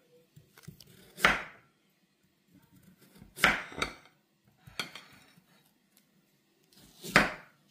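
Kitchen knife slicing a carrot into rounds on a wooden cutting board: about five separate chops at uneven intervals, each a short knock of the blade meeting the board.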